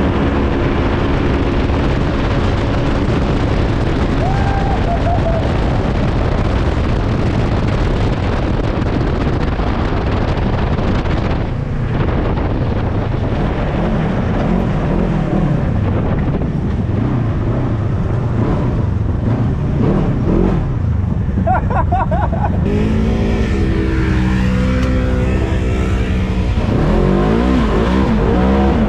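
Several Polaris RZR XP 1000 side-by-sides racing flat out, their twin-cylinder engines revving hard with the pitch climbing and dropping through the gears. The engine sound changes abruptly twice, about twelve and twenty-three seconds in.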